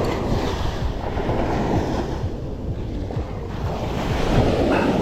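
Wind buffeting the microphone over the wash of sea waves, swelling and easing in an uneven, rumbling rush.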